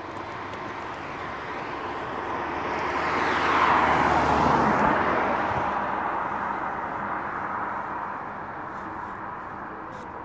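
A vehicle passing by: noise that swells over a few seconds, is loudest about four seconds in, then fades away, over a faint steady low hum.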